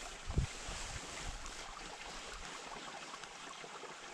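Steady rush of running water, with a brief low thump about half a second in.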